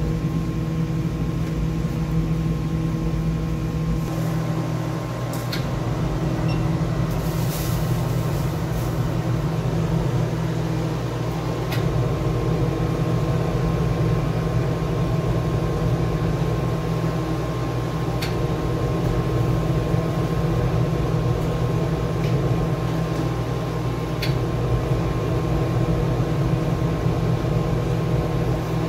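Conveyor pizza oven running with a steady mechanical hum, its blower and belt drive holding one even tone throughout, with a few faint clicks here and there.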